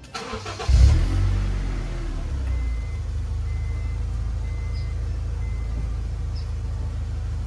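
A 1997–2000 Honda CR-V's four-cylinder engine is cranked by the starter for under a second, catches with a loud surge about a second in, and settles into a steady idle.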